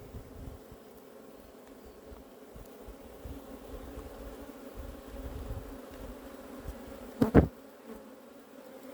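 Honeybees buzzing steadily around an open hive, a continuous low hum. About seven seconds in comes a brief, much louder sound close to the microphone.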